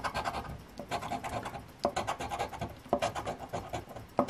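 Large silver coin scraping the scratch-off coating from a paper lottery ticket: bursts of quick back-and-forth scratching strokes, about one burst a second, each starting with a sharp click as the coin edge hits the card.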